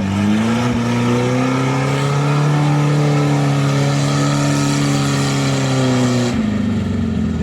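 UAZ off-road vehicle's engine revving hard and held at high revs under load, its pitch creeping up and then easing. About six seconds in, the revs drop off suddenly.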